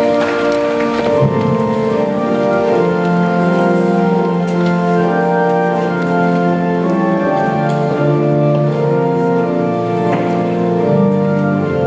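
Church organ playing a hymn in held chords that change every second or two.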